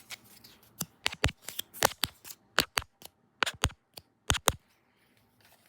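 Sticks of a pick-a-stick game clicking and clacking as they are handled and drawn: a run of sharp, irregular taps, some in quick pairs, starting about a second in and stopping well before the end.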